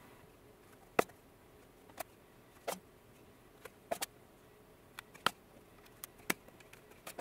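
Drywall knife clicking and tapping against the wall and corner bead while mud is worked into the gap. The clicks are sharp and irregular, about one a second, and the loudest comes about a second in.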